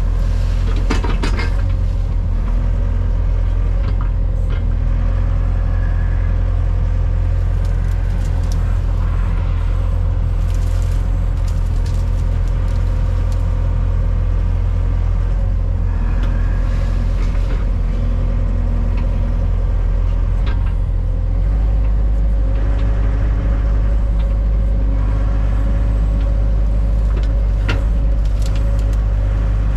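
Engine running with a steady low rumble that shifts to a slightly different pitch about two-thirds of the way through.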